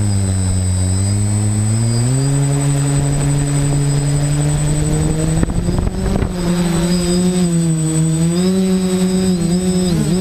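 DJI quadcopter's brushless motors and propellers running close up, stepping up in pitch about two seconds in and then wavering up and down as the throttle changes, with a thin high steady whine over them.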